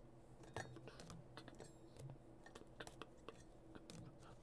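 Faint, irregular clicks and taps of trading cards in hard plastic holders being handled and set down on a desk, over a faint steady low hum.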